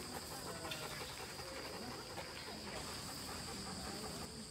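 Steady high-pitched insect chirring, with faint voices in the background.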